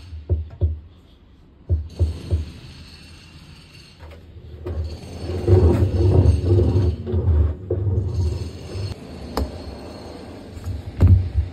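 Irregular knocks, clunks and rumbling from hands-on work on an LG washer-dryer, with a denser rumbling stretch about halfway and a few sharp knocks near the end.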